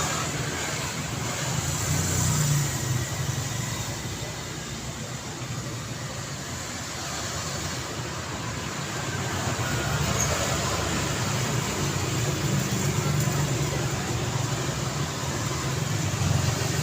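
Road traffic going by: a steady rumble of engines and tyres that swells as vehicles pass, about two seconds in and again through the second half.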